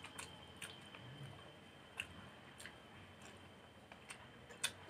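Faint mouth sounds of people eating rice and fish by hand: scattered short wet smacks and clicks of chewing, the loudest one near the end.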